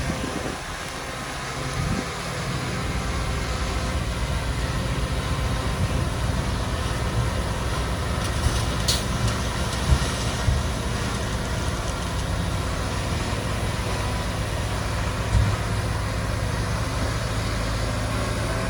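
Heavy diesel earthmoving machinery running steadily with a low rumble, and a few brief knocks over it.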